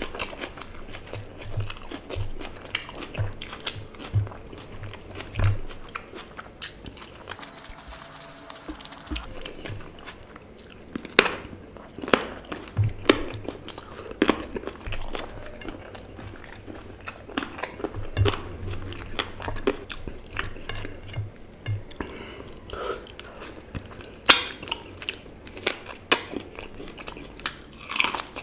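Close-miked eating sounds: a man chewing and biting mouthfuls of rice and meat curry eaten by hand, with wet mouth clicks and smacks and scattered crunches.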